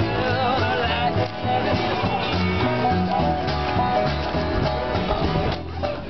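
Acoustic string band playing a bluegrass-style tune: plucked upright bass stepping through notes under banjo, acoustic guitars and fiddle. The music dips briefly near the end.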